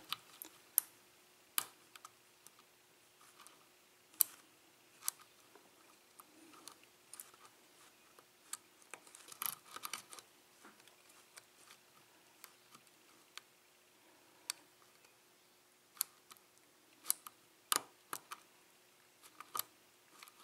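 Lock pick and tension wrench working the pin stacks of an Assa-Abloy SCD six-pin lock: faint, irregular sharp clicks and ticks as pins are lifted and set, with a few louder clicks spread through.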